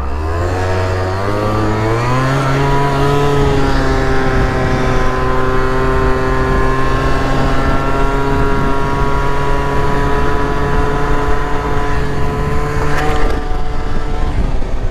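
MBK Booster Spirit 50 cc two-stroke scooter engine run up hard for a wheelie: its pitch climbs over the first two seconds, holds at a steady high drone at full throttle, then drops about 13 seconds in as the throttle is eased.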